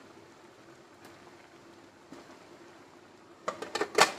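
Aluminium lid, wrapped in a cloth, set down onto a large aluminium cooking pot: a quick cluster of clattering knocks about three and a half seconds in, the loudest one near the end. Before it, only a faint steady hum.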